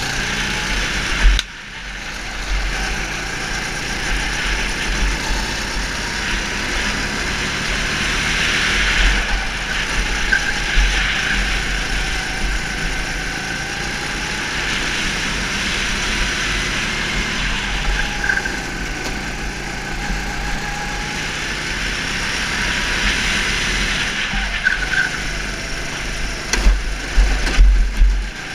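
Go-kart engine heard from the driver's seat, its pitch slowly rising and falling as the kart laps, with wind buffeting the microphone in loud gusts near the start and near the end.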